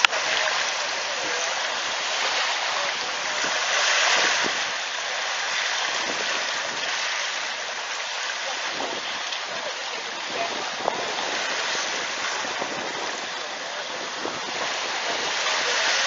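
Steady wash of small sea waves on the shore, swelling a little about four seconds in and again near the end.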